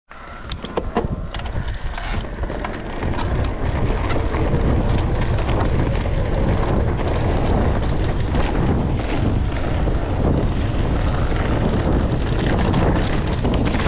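Wind buffeting the microphone as an electric mountain bike rolls fast down a dirt trail strewn with dry leaves, with frequent sharp clicks and rattles from the bike over bumps, thickest in the first few seconds.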